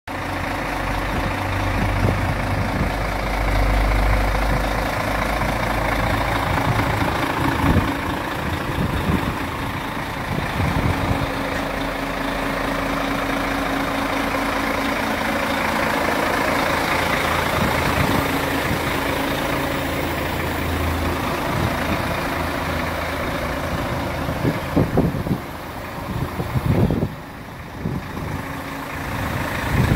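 Iveco Stralis 440S50T tractor unit's Cursor 13 inline-six diesel engine idling steadily with a low, even rumble. Near the end the sound turns uneven, with a few irregular bumps.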